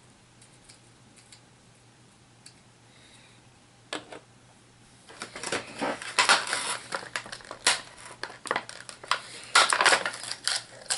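Plastic HeroClix booster packaging and miniature figures being handled: a single click, then from about halfway a dense run of rustling, crinkling and small plastic clicks and clatter.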